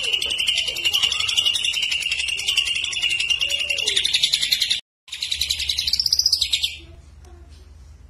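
Caged male green leafbird (cucak ijo) singing a loud, fast, continuous trilling song. Just before the middle there is a sudden brief gap. The song then resumes with a rising and falling whistle, and fades to a faint background about three-quarters of the way through.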